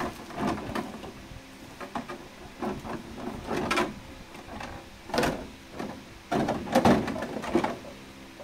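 Tissue wrapping paper and a clear plastic blister tray rustling and crinkling in irregular bursts as they are handled, loudest past the middle.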